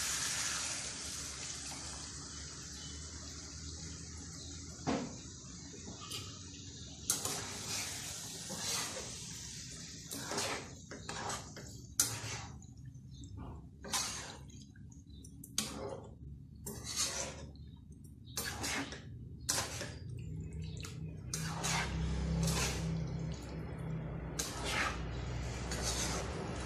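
Coconut milk poured into a hot wok of frying chicken and potatoes, the sizzle dying away over the first several seconds. Then a spoon scraping and knocking against the non-stick wok as the mixture is stirred, in short strokes about one to two a second.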